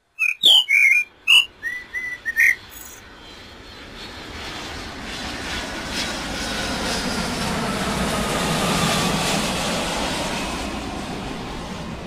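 A common blackbird gives a quick run of sharp, loud calls, then an airplane passes overhead: its engine noise swells for several seconds, is loudest about two-thirds of the way through, and fades, with a faint whine that falls slowly in pitch.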